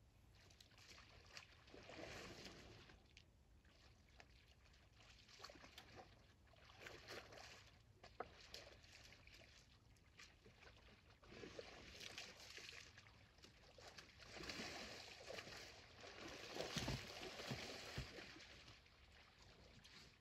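Elephants wallowing in a mud pool, faintly sloshing and splashing wet mud and water in irregular swells, loudest near the end with a few sharp slaps as one elephant gets up.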